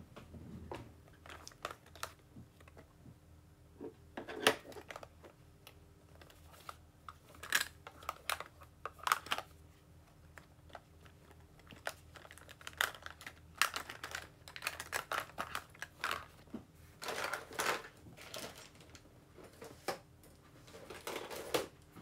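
Irregular clicks, taps and rustling from things being handled close to the microphone, coming in clusters, with a faint steady hum underneath.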